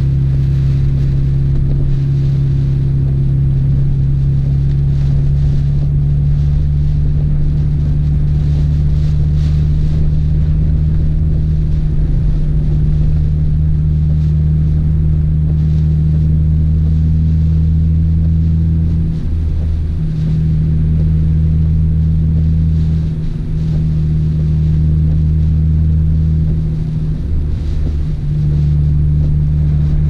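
Nissan Skyline R32 GT-R's twin-turbo straight-six engine droning steadily at cruising speed, heard inside the cabin, dropping away briefly three times in the second half.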